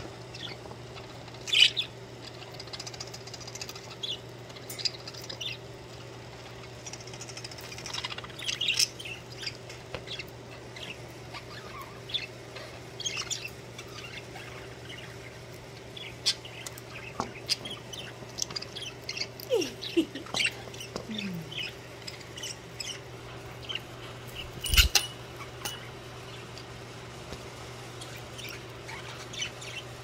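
Pet budgerigars chirping and chattering in their cage: many short, high chirps scattered throughout, over a steady low hum. There is one sharp knock late on.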